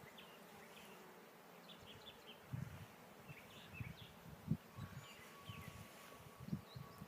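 Honey bees buzzing faintly around an open hive, with soft low thumps now and then.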